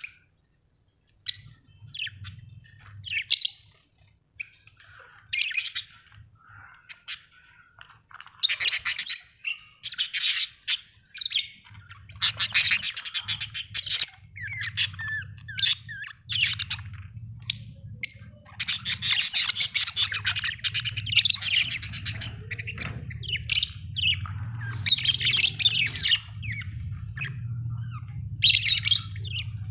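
Budgerigars chirping and chattering: short high chirps between bursts of fast warbling chatter lasting a few seconds each. A low steady hum runs underneath for most of it.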